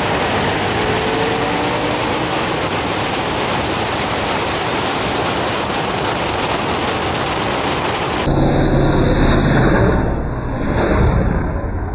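Dense, steady rush of wind and engine noise from a street-racing car at full throttle, heard through a camera mounted on the car's body. About eight seconds in it switches to a roadside recording of the race cars rushing past, with a deep rumble that surges twice.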